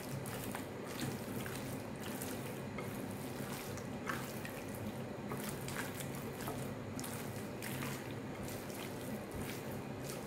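Hands squeezing and tossing raw chicken pieces in a wet spice marinade in a glass bowl: soft, irregular squelches and small clicks, over a steady low hum.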